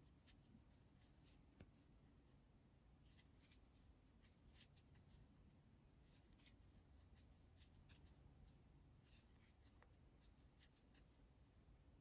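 Near silence with faint scratchy rustling in short clusters: yarn rubbing and sliding over a crochet hook as single crochet stitches are worked.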